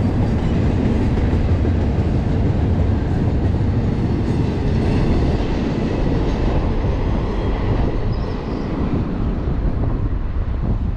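BNSF intermodal freight train passing close by: a loud, steady rumble of rolling cars on the rails, easing slightly near the end.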